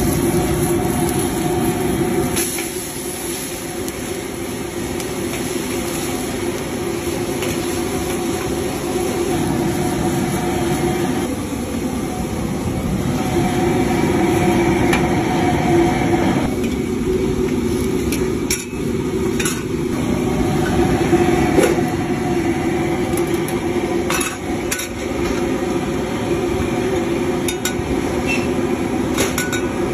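Wok cooking: a steady noise from the gas wok burner and the rapidly boiling stock, with a metal ladle clinking and scraping against the steel wok every so often.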